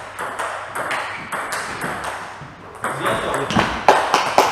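Table tennis balls clicking off bats and tables at several tables at once, in an irregular patter of sharp ticks. From about three seconds in, a close rally adds louder, sharper hits.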